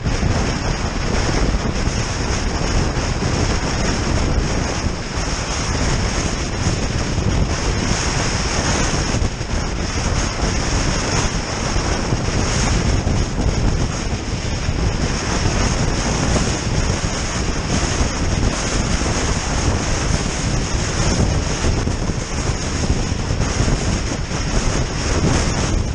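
Steady wind noise buffeting the microphone of a GoPro Hero Session stuck to the outside of a car travelling at speed, mixed with the car's road rush.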